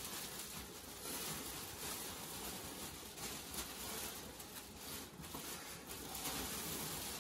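Rustling and handling noise from packaging being worked on, an irregular crinkly hiss with small scuffs throughout.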